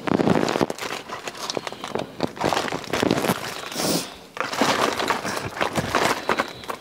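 Rummaging through a shiny pink makeup bag: a dense, continuous crinkling rustle of many small crackles, easing off briefly about four seconds in.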